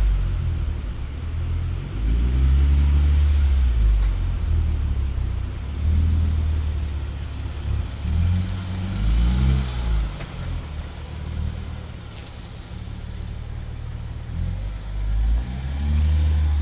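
Hyundai Genesis Coupe 3.8 V6 running through a CNT v3 cat-back exhaust with test pipes in place of the secondary cats, a deep exhaust rumble. The engine speed rises and falls several times.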